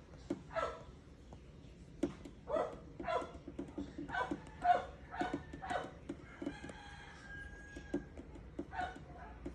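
An animal in the background calling over and over in short pitched calls, one or two a second, with a longer, steadier call in the last few seconds. Under it are soft taps of a stylus on an iPad screen.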